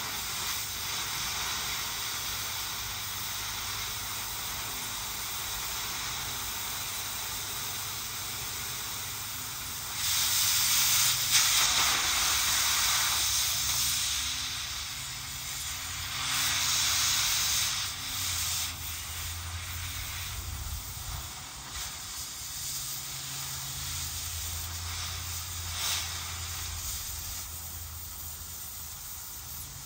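Cutting torch hissing steadily as it cuts through scrap steel, with two louder stretches of hiss about ten and sixteen seconds in.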